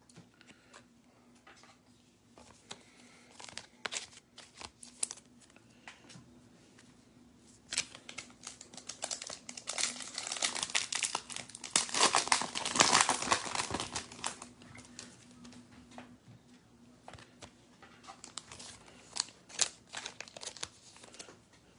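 Foil wrapper of a Topps WWE Chrome trading-card pack crinkling and tearing as it is opened by hand. There are scattered crackles at first, a dense stretch of crinkling in the middle, then lighter crackles and clicks as the cards are handled.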